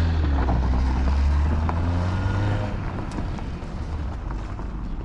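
Car engine running as the sedan pulls away and drives off. The engine note is strong and steady at first, then fades from about halfway through as the car moves into the distance.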